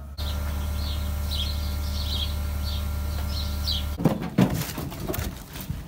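Small birds chirping repeatedly over a steady low hum. About four seconds in, the hum stops and there are irregular knocks and thumps with rustling in a straw-bedded barn, where goats are moving about.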